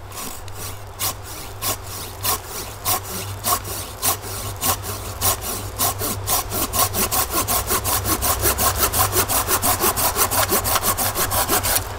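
Silky Gomboy 240 folding saw cutting through a sweet gum branch about three inches thick, its teeth biting on the pull stroke only. The strokes start slow and get quicker and louder through the second half of the cut.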